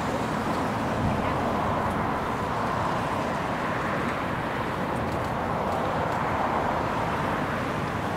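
Airbus A320-214 on final approach, its CFM56-5B jet engines giving a steady, even rumble.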